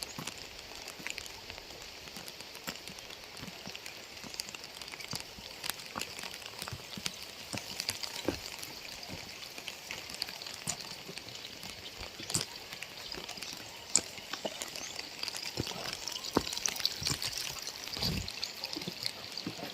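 Steady rain falling, a continuous hiss with many separate drops landing, some sharper and louder than others.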